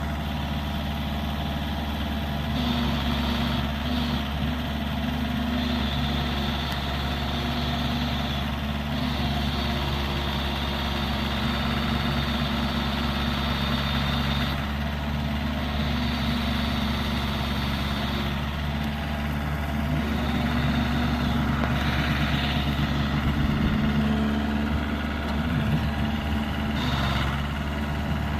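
Kubota L3350 loader backhoe's diesel engine running steadily near idle, with a brighter upper note coming and going every few seconds.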